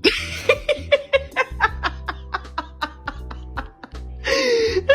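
Background music with a quick, steady beat, and a short burst of laughter about four seconds in.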